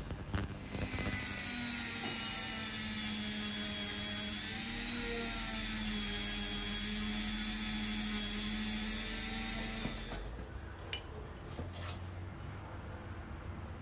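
Ultrasonic cleaner running: a steady high hiss and buzz with several faint wavering tones, which cuts off suddenly about ten seconds in. A few light metallic clicks of carburettor parts being handled follow.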